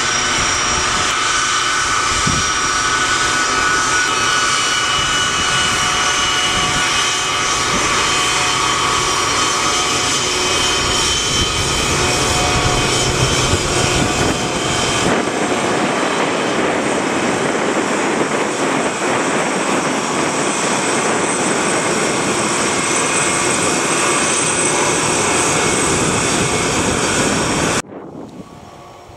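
Pratt & Whitney turbofans of a Boeing 757-based C-32A jet rolling along the runway: a steady jet rumble with several high whining tones. The sound shifts about halfway through as the jet passes side-on, and cuts off suddenly near the end.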